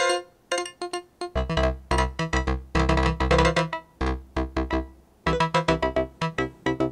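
Make Noise Eurorack modular synthesizer playing rapid clusters of short pitched notes, triggered as the PoliMATHS channels fire. A low bass note joins about a second in, and the bursts pause briefly around four and five seconds in.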